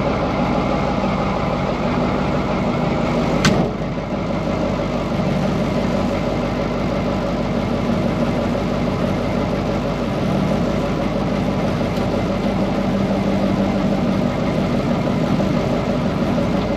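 Cummins V-555 "Triple Nickel" V8 diesel of a 1972 Brockway 358 truck idling steadily, heard from inside the cab. One sharp click sounds about three and a half seconds in.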